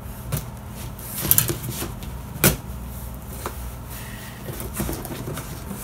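A knife slitting the tape on a cardboard box and scraping the cardboard: a series of short scrapes and sharp clicks, the loudest about two and a half seconds in, over a steady low hum.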